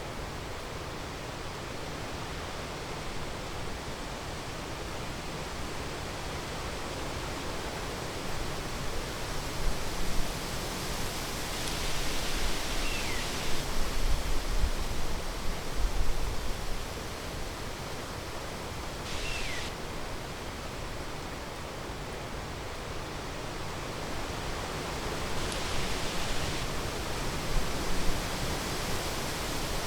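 Steady outdoor rushing noise with low bumps near the middle, and a brief high falling note twice.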